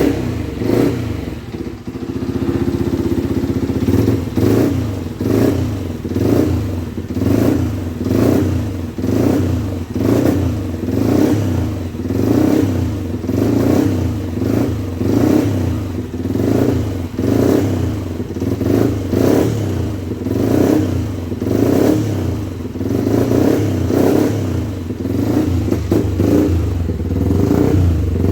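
Freshly rebuilt Yamaha 125 cc motorcycle engine running, revved in short repeated blips about once a second.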